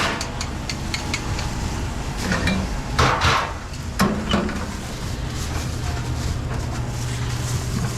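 Commercial kitchen work noise: scattered knocks and clatter of utensils and containers, sharpest about three and four seconds in, over a steady low hum.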